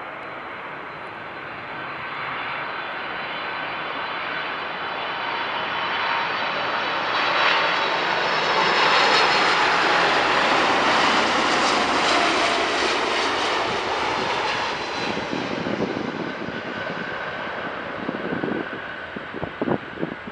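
Boeing 747-400F freighter's four turbofan engines on a landing pass: the jet noise and engine whine grow louder as it comes in, are loudest as it passes close by about halfway through, then fall in pitch and fade as it rolls away down the runway.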